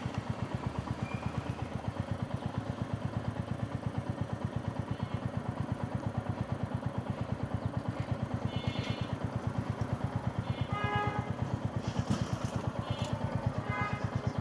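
Motorcycle engine running steadily while riding, a fast low pulsing muffled by a wireless clip-on mic's noise cancellation. A few short horn toots from traffic come in the second half.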